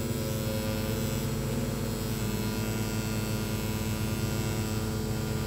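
Rotary tattoo machine with a 3RL needle running, a steady even hum as the needle draws a line into practice skin.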